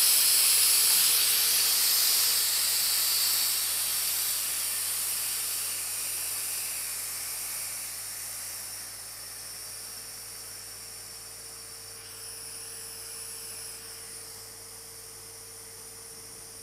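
Argon–CO2 shielding gas hissing out of a cylinder regulator with rotameter while the flow is being set. The hiss is strongest at first, then fades gradually over about ten seconds.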